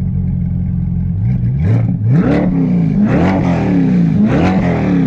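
C8 Corvette V8 through an aftermarket exhaust, idling and then revved in a series of quick throttle blips from about a second in, the pitch climbing and dropping with each rev.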